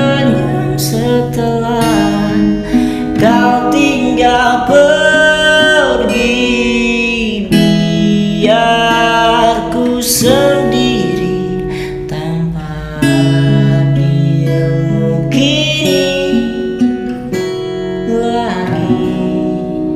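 Song with acoustic guitar playing, strummed and picked, with a singing voice at times.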